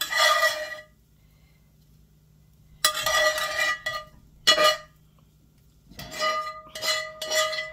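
Bells ringing in a series of uneven strikes: one at the start, a longer run about three seconds in, a short one around four and a half seconds, then several close together near the end, each note ringing on and dying away.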